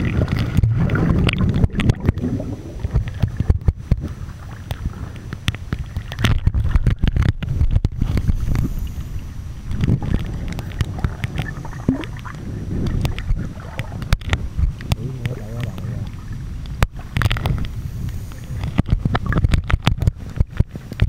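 Muffled sound of a camera held underwater in shallow sea: a low rumble of moving water with frequent clicks and knocks.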